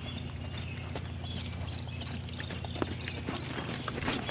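Hoofbeats of a horse trotting on sand footing, an uneven soft clip-clop that grows more frequent and louder toward the end as the horse passes close by.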